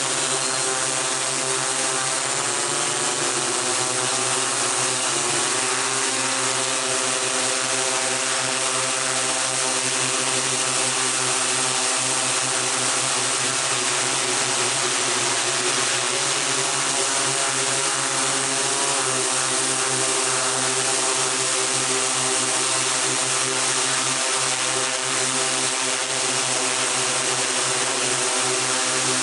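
Small multirotor camera drone's motors and propellers whirring steadily, a many-pitched hum with hiss that shifts slightly in pitch now and then.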